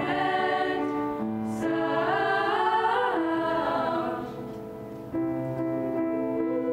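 Middle-school choir singing a phrase with grand piano accompaniment. The voices fade out about four seconds in, and from about five seconds in the piano carries on alone with a repeated figure.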